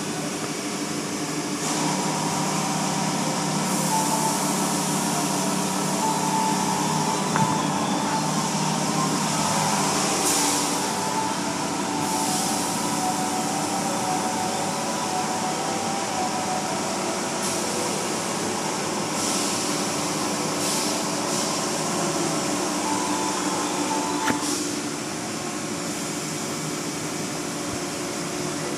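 Automatic car wash heard from inside the car: water spray beating on the glass over the steady hum of the wash's motors and spinning cloth brushes. A couple of knocks, and it turns a little quieter near the end.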